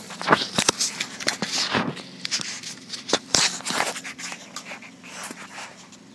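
Camera handling noise: irregular scrapes, rubs and clicks as the camera is jostled against hands and a plastic toy blaster. It is busiest in the first few seconds and dies down toward the end.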